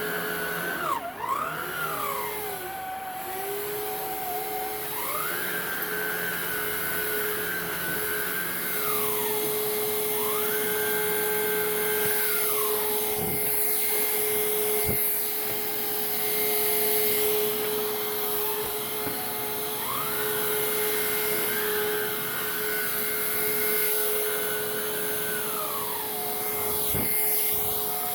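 Hoover React cordless upright vacuum running on carpet, its motor and brush roll agitating the pile. A steady whine runs under a higher tone that climbs to a higher pitch and drops back again several times.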